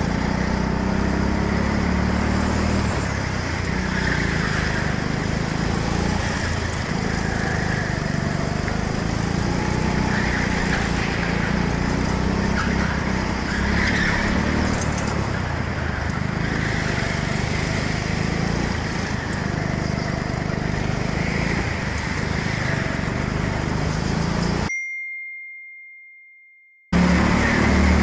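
Go-kart engine running under throttle as heard from the kart's onboard camera, a steady low drone with a higher note rising briefly every few seconds. The sound cuts out for about two seconds near the end, then comes back.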